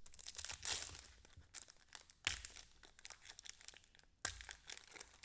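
Crinkling and rustling of trading card pack wrappers and cards being handled, fairly faint, with a few sharper crackles.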